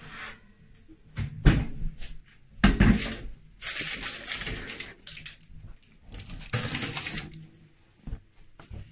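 A hot brownie tin lined with baking paper being handled with a tea towel: two sharp knocks, then the baking paper crinkling twice.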